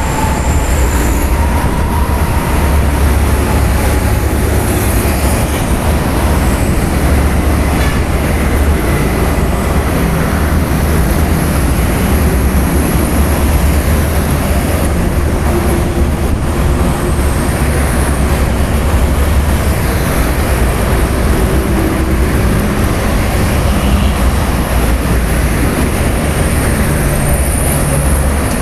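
Steady, loud rumble of heavy road traffic, even throughout, with faint tones of passing vehicles drifting up and down in it.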